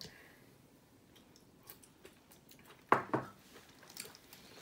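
Quiet eating and table sounds: scattered small clicks and taps of cutlery and dishes, with one louder short knock about three seconds in.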